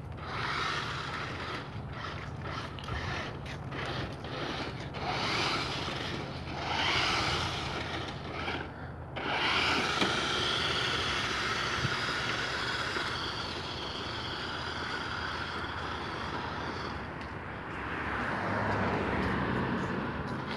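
New Bright 1:8 RC Wrangler 4x4 driving, its small electric motor and gearbox whining under a gritty scrape of tyres on pavement and snow. The scraping is rough and uneven at first, and from about halfway the sound settles into a steadier whine.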